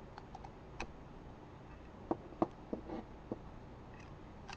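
A handful of faint, scattered small clicks and ticks as the rubber tip is cut off the end of a metal bobby pin.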